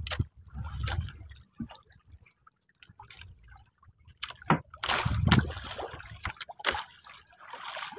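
Sea water sloshing and splashing against the side of a small wooden boat in irregular surges, with a few short clicks in between.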